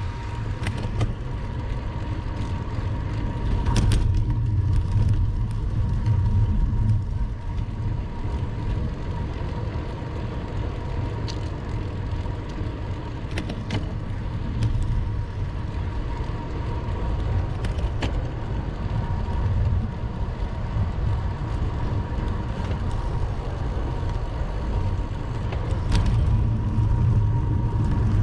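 Steady low rumble of wind and road noise from riding a bicycle along a road, swelling a few times, with a few faint clicks.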